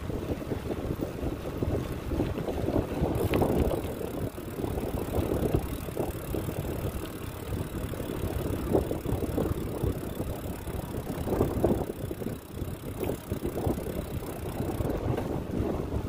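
Wind buffeting the microphone of a camera on a moving bicycle, a rumble that gusts up and down.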